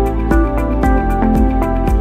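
Background music: a melody of held notes over a steady bass, with a quick, even beat.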